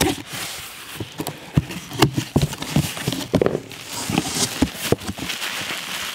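Cardboard box flaps being pulled open and bubble wrap being handled: irregular rustling and crinkling with scattered light knocks.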